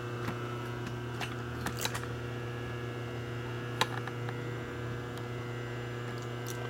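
Steady electrical hum in a machine shop, with a few faint clicks about two and four seconds in.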